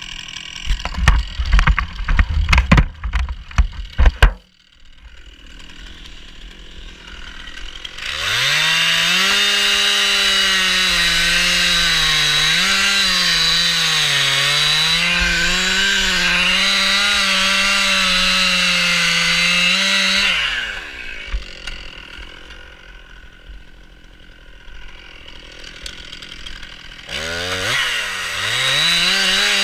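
A run of loud, irregular sharp knocks for about the first four seconds. Then a Stihl MS 261 two-stroke chainsaw comes up to full throttle and cuts wood for about twelve seconds, its pitch sagging and recovering under load, before dropping back to idle. Near the end it revs up to full throttle again.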